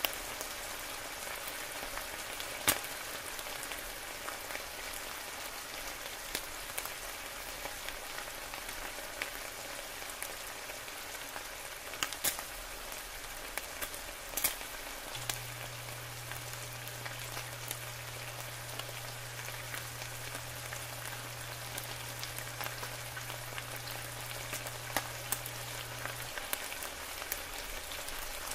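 Bacon strips frying in hot fat in a pan: a steady sizzle with scattered sharp pops of spitting grease.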